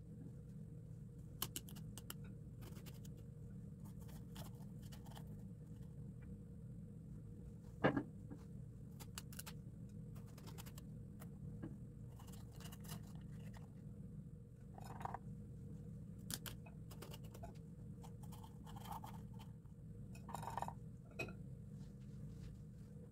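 Kitchen handling sounds: scattered light clicks, taps and small scrapes of utensils and dishes, with one sharper knock about eight seconds in, over a steady low hum.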